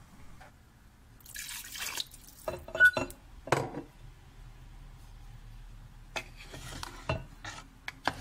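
Water poured from a glass jar into a pan of simmering curry: a hiss and a splash, with the glass clinking a few times against the pan. Near the end, a wooden spoon knocks against the pan as the curry is stirred.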